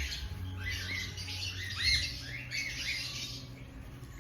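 A bird chirping in short rising-and-falling calls, about two a second.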